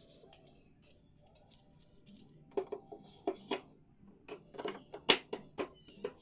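An irregular run of sharp knocks and clicks, about a dozen, starting about two and a half seconds in, with the loudest knock near the end. These are wooden chair parts and hand tools being handled during assembly.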